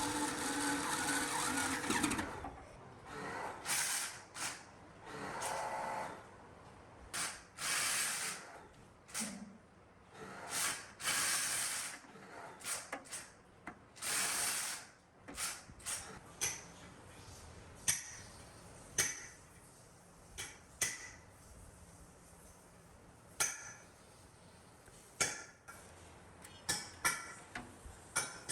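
Workshop work sounds: a small machine runs briefly and stops about two seconds in, followed by a string of irregular clicks and taps mixed with short hissing or rasping bursts of about a second each.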